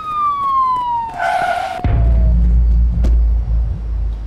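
Film intro sound effects: a single siren-like tone gliding slowly down in pitch, crossed about a second in by a short hissing swoosh. About two seconds in, a deep bass boom starts suddenly and holds as a low rumble.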